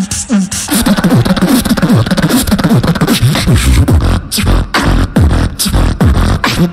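Human beatboxing into a microphone: a fast, dense run of kick, snare and click sounds with repeated low bass tones that slide downward.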